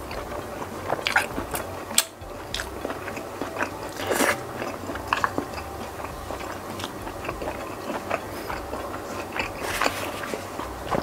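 Close-miked chewing of a mouthful of spicy meatball soup: wet mouth clicks and smacks, with scattered crunches.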